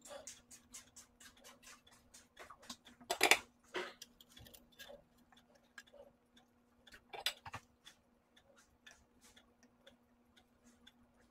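Light clicks and ticking from the plastic case halves and circuit board of an electric blanket controller being handled for soldering, with louder plastic knocks about three seconds in and again about seven seconds in. A faint steady hum runs underneath.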